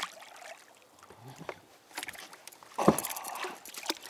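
A hooked blue catfish thrashing and splashing at the water surface beside a boat, with scattered small splashes and one louder sudden burst about three seconds in.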